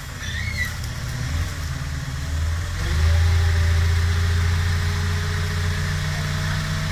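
Six-wheel dump truck's diesel engine running, then revving up about three seconds in and holding there while the hydraulic hoist lifts the tipper bed, with a steady whine over the engine note.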